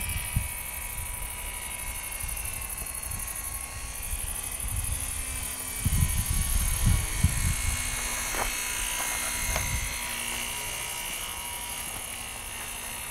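Distant buzzing whine of the HobbyZone Super Cub RC plane's electric motor and propeller, its pitch drifting slowly as it flies overhead. Wind buffets the microphone with low rumbles about halfway through.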